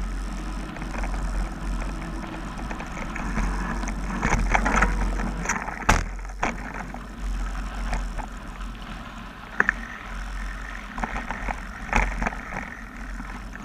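Mountain bike riding fast down a dirt forest trail: knobby tyres on loose dirt, wind rumbling on the bike-mounted camera's microphone, and the bike rattling with sharp knocks over bumps. The loudest knock is about halfway through, with more near the end.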